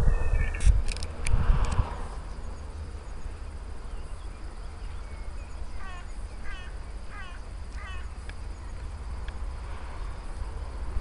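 A bird singing: four quick repeated phrases of short falling chirps, a little past the middle. A steady low rumble runs underneath, with a few sharp clicks about a second in.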